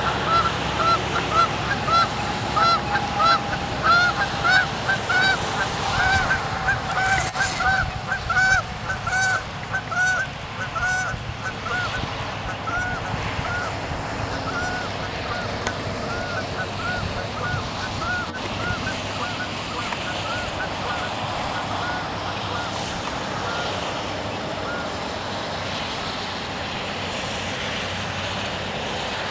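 Geese honking over and over, about two honks a second, loud for the first dozen seconds and then thinning out and fading.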